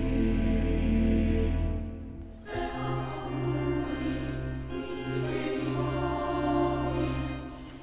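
Background music with sustained choir-like voices and chords, changing to a new passage about two and a half seconds in.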